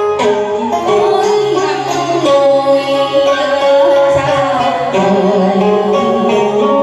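Music with a plucked string lead, its notes bending in pitch.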